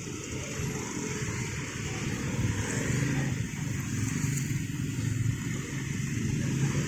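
Steady rumble of motor vehicles running.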